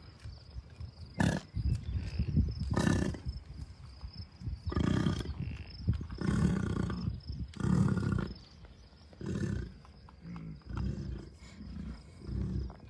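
American bison grunting over and over: about half a dozen low, rough calls of roughly a second each, one every second or two, then weaker ones near the end.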